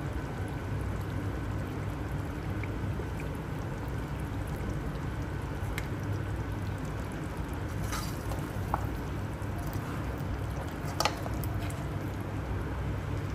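Mutton trotters in masala simmering in oil in a pan, a steady bubbling hiss, with a few light clinks of a metal ladle against the pan, the sharpest about eleven seconds in.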